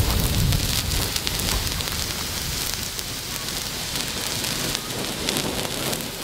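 JGWB Sternfackel Typ A, a handheld star torch, burning with a steady fizzing crackle of sparks.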